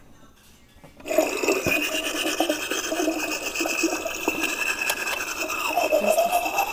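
Battery-powered Barbie Dreamhouse bathroom playing its electronic sound effect through a small toy speaker: a teeth-brushing sound over a steady high tone. It starts suddenly about a second in.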